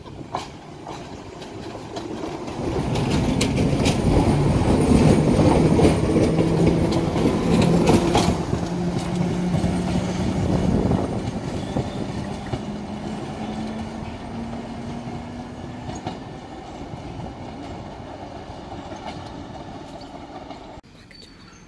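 Island Line Class 483 electric train, a converted 1938 London Underground tube stock unit, running past along the platform and away. A low hum rises slightly in pitch over a clatter of wheels on rail, loudest a few seconds in, then fades as the train recedes, and cuts off abruptly near the end.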